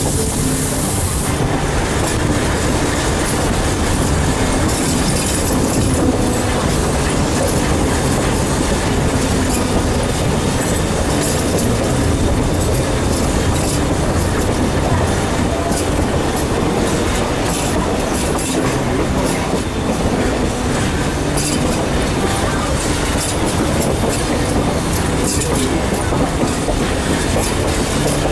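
Durango & Silverton narrow-gauge train running along the track: a steady rumble of wheels on the rails with a clickety-clack of the wheels over rail joints.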